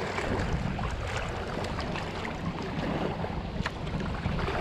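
Wind buffeting the microphone over choppy lake water, with small waves lapping at the shore: a steady rushing noise with a low rumble.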